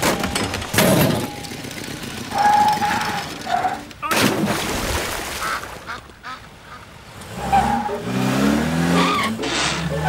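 Cartoon car horns honking several times, one longer toot and some short ones, among traffic sound effects, with a loud noisy burst just after four seconds.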